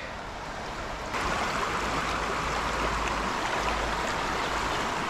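Steady rush of water, stepping up louder and brighter about a second in.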